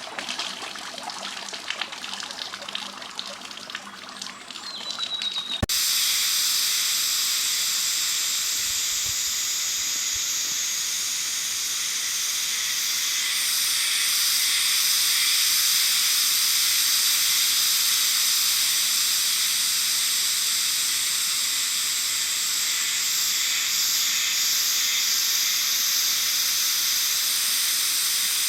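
Rushing water with a steady hiss. About six seconds in it cuts abruptly from a quieter trickle to a much louder, even rush.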